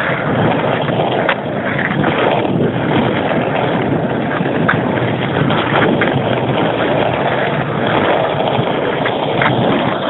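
Skateboard wheels rolling over rough asphalt: a loud, steady rumble, with a few short clicks.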